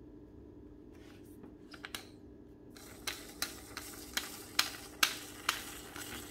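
Parts of a Wacaco Pipamoka portable coffee maker being removed and emptied after brewing: a few light clicks, then from about three seconds in a steady hiss with sharp knocks roughly twice a second.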